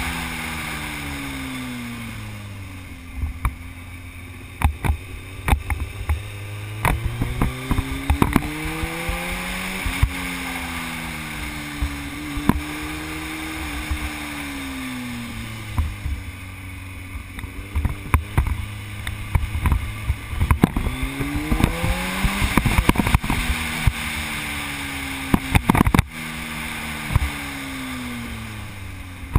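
Sport motorcycle's engine running at speed, its pitch falling off and then climbing again as the rider slows for curves and accelerates out of them, with a strong climb about eight seconds in and again near twenty seconds. Wind buffets the microphone in gusts throughout.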